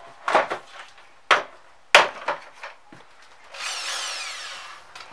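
A few sharp clicks and knocks of a tool being handled, then a corded electric drill run briefly about three and a half seconds in, whining and winding down in pitch as the trigger is let go.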